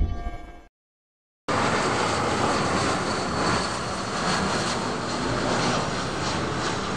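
Twin-engine jet airliner flying low overhead in its climb: a steady jet engine roar with a hissing top that starts suddenly about a second and a half in and cuts off at the end. Before it, a logo whoosh sound effect fades out.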